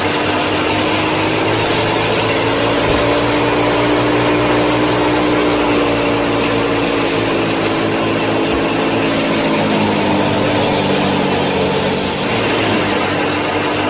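Small electric motor of a DIY miniature wheat thresher model running continuously with a steady whine over a mechanical rattle, its pitch sagging and recovering slightly as the load changes.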